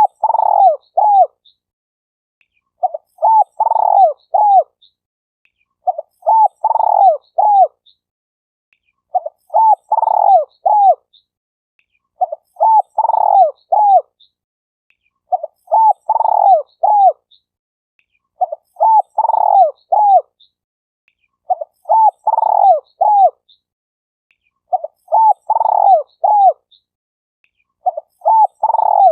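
Spotted dove cooing: the same short phrase of several coos, repeated about every three seconds with silence between.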